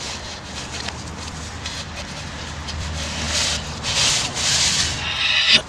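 Audio played backwards: a steady rubbing, scraping noise over a low hum, with louder bursts of hiss about three and four seconds in.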